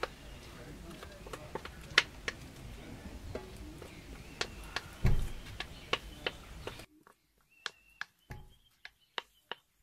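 A spoon scraping and tapping against the inside of a metal bowl as thick, sticky batter is scraped out into a cast iron bread pan: irregular sharp clicks and taps, with a heavier knock about five seconds in.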